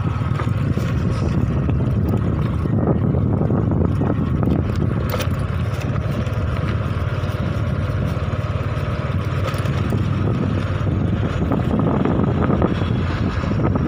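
Honda motorcycle engine running steadily at riding speed on a rough dirt road, with a few short knocks and rattles from the bumpy surface.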